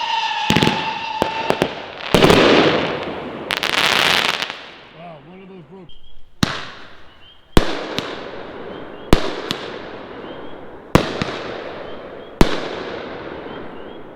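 Consumer 18-shot fireworks cake firing: a howling-tail whistle falls slightly in pitch and fades in the first second and a half, brocade breaks crackle twice, and from about halfway a string of sharp loud reports follows, roughly one every second and a half, each ringing off.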